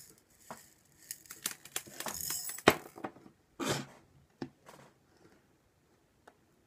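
Tiny Nerds candies pouring from a tipped drinking glass into a mouth: a rattling rush of little clicks, with some candies spilling and ticking onto the tabletop and one loud click a little over two and a half seconds in, then a few scattered clicks.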